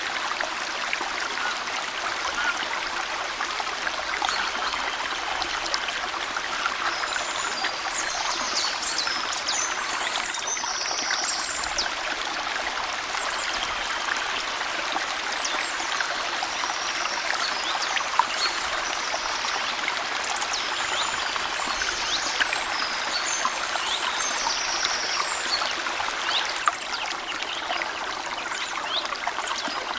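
Small stream running over stones in a steady trickle and burble, with songbirds chirping and trilling above it.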